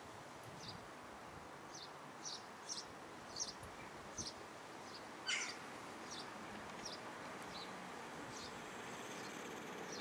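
Juvenile herring gull giving a series of short, thin, high peeping calls, one or two a second, with one louder call about five seconds in. This is the thin peeping typical of a begging gull chick. A steady hiss of background noise lies underneath.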